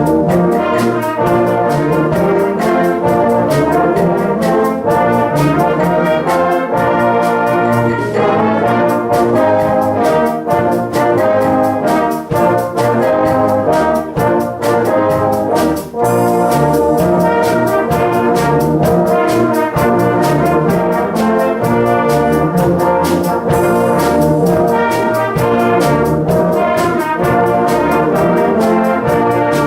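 Brass band playing a full-ensemble piece with trombones and cornets, over a steady beat.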